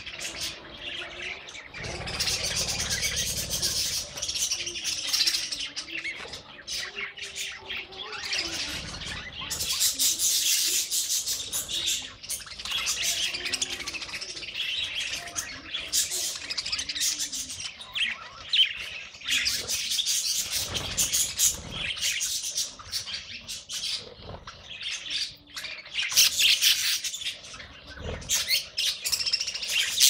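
A flock of budgerigars chattering continuously, many birds chirping and squawking over one another in a dense, unbroken twitter.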